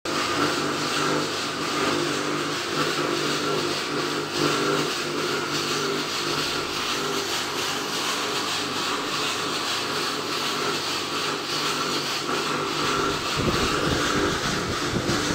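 Drum coffee roaster running: a steady machine hum over an even rushing noise from its motor and gas burner, with a brief low rumble about thirteen seconds in.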